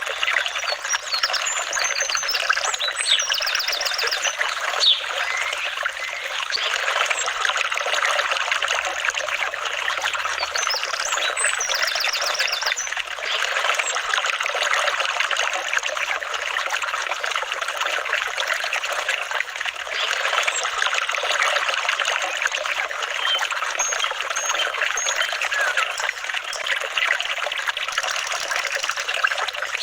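Flowing water trickling and babbling steadily, an even rushing hiss with no pauses.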